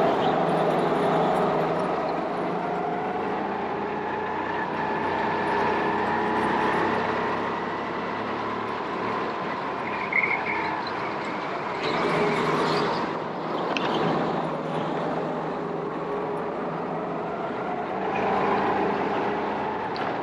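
Go-kart engines running, their pitch slowly rising and falling as the karts speed up and slow down, with a brief high squeak about ten seconds in.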